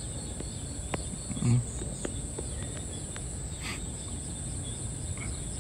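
Insects chirring in a steady, high-pitched, unbroken drone over a low ambient hum of the open field, with a few faint ticks.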